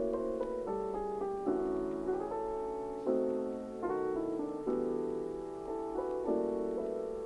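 Background piano music: chords and a slow melody, with a new note or chord struck about every second.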